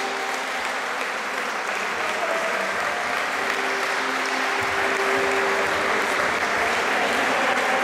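Crowd applauding steadily, with music playing faintly underneath.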